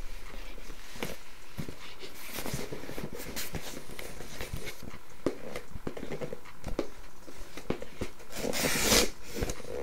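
A cardboard shipping box being cut open: irregular scraping, tapping and handling noises, with a louder burst of tearing near the end.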